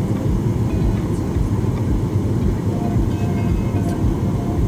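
Steady low rumble of cabin noise inside a Boeing 737 airliner: engine and airflow noise.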